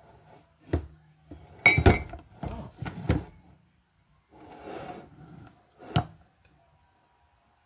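Dishes and utensils clinking and knocking on a tabletop. There are a few sharp knocks, a louder clattering cluster about two seconds in, and a single knock about six seconds in as a ceramic mug is handled.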